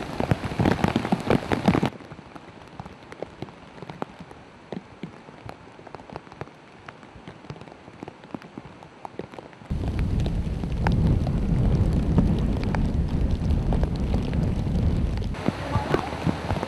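Heavy rain and rushing floodwater, with many sharp raindrop hits close by. About ten seconds in the sound cuts to a much louder, deeper rush of water lasting about five seconds.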